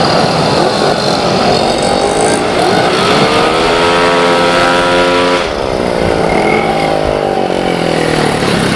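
Race-tuned 115 cc automatic scooter engines running hard around a short circuit. The pitch climbs to a high, steady whine for a second or so, then falls away over the last few seconds as a bike goes by.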